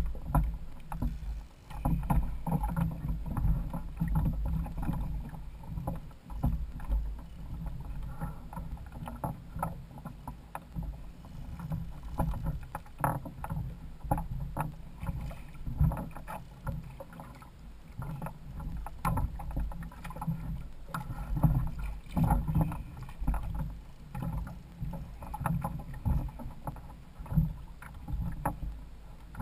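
Water lapping and slapping against a plastic kayak hull, with a steady low rumble and irregular knocks and splashes.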